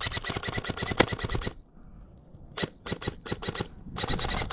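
Airsoft gun firing on full auto in three short bursts of rapid clicking shots, with one sharper crack about a second in.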